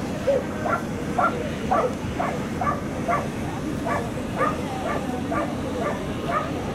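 A dog barking over and over at an even pace, about two barks a second.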